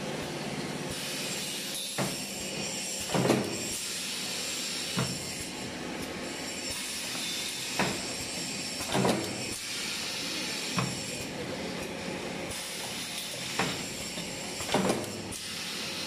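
Automatic stainless steel band cutting and riveting machine, a punch press with pneumatic strip feed, cycling over a steady hiss: a sharp clack, a louder burst with a hiss of air, then another clack, the group repeating about every six seconds.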